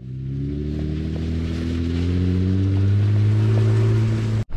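Jeep Wrangler JL engine pulling under acceleration, its pitch climbing slowly as it grows louder, over a hiss of tyre and wind noise. It starts suddenly and cuts off suddenly near the end.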